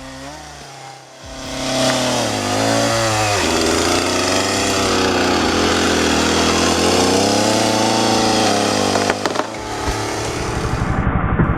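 Chainsaw engine revving up and running at high speed, its pitch dipping and rising several times, then dropping to a lower, pulsing run about nine seconds in.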